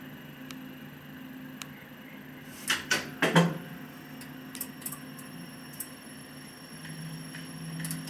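Elevator controller relays clicking in the relay cabinet: a cluster of sharp clicks about three seconds in, the loudest, then a few fainter single clicks, over a low steady hum.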